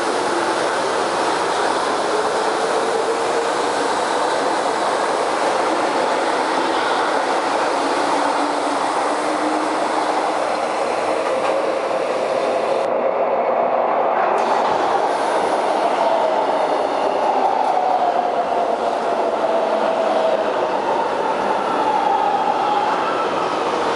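Two São Paulo Metro trains on elevated track, one departing and one arriving: a continuous rumble and clatter of wheels on rail. A traction-motor whine rises early on as the leaving train speeds up. Later a whine falls as the arriving train slows into the station.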